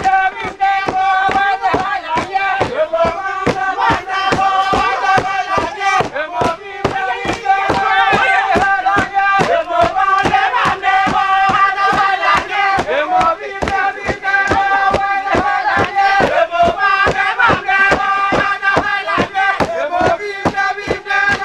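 A group of villagers chanting together in a traditional dance song, holding long notes over a fast, steady beat of sharp strokes.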